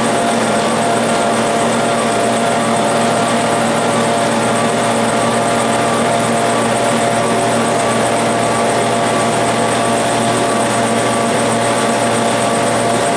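Steady mechanical running noise that does not change, with several steady hum tones over an even wash of noise.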